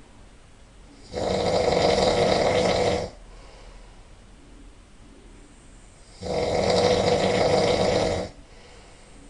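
A man snoring really loud: two long snores of about two seconds each, roughly five seconds apart, with quiet gaps between them.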